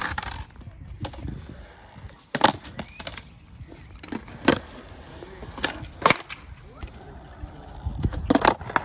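Skateboard flip tricks on smooth concrete: sharp tail pops and clacking landings of the board, a second or two apart with a cluster near the end, over the low rumble of wheels rolling.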